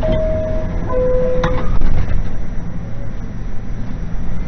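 Subway car door chime: two steady notes, the second lower, telling passengers the doors are closing. A sharp knock comes just after the second note, and the car's low rumble runs underneath.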